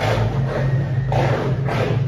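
A power generator running steadily with a low hum. Two bursts of breathy hiss pass over it, one at the start and one about a second in.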